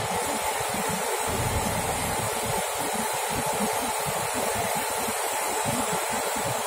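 Steady rushing noise of a SANY 25-ton truck crane's engine running while it holds a steel tank on the hook, with a faint steady whine. Wind gusts buffet the microphone underneath.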